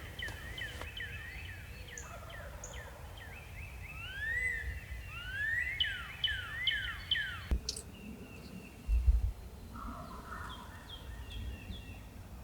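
Distant wild turkeys gobbling at dawn, mixed with songbirds singing short whistled phrases. A single sharp knock comes about halfway through.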